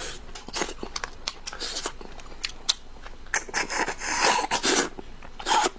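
Close-miked eating sounds: chewing and biting with sharp wet mouth clicks, busiest about halfway through and again near the end.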